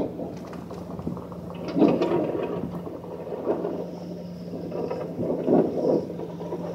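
Engines running steadily while a stuck box truck is towed free, with a constant low hum and low rumbling surges every couple of seconds.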